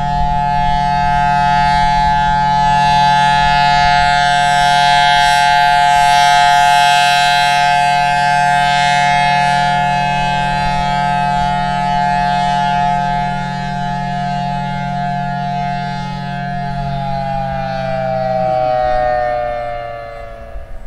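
Federal Signal Thunderbolt 1000T two-tone siren sounding its steady chord over the drone of its blower, loudness rising and falling as the horn rotates. It sounds loud and healthy. Near the end the tones start to fall and the blower stops as the siren winds down.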